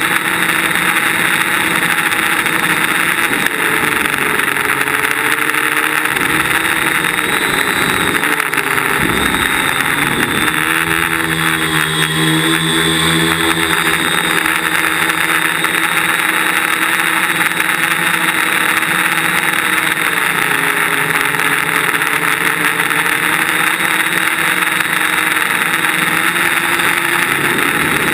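DJI Flame Wheel quadcopter's electric motors and propellers whirring steadily, heard from its onboard camera. The pitch dips and climbs again several times with the throttle, most markedly about a third of the way in, with a smaller dip past the middle.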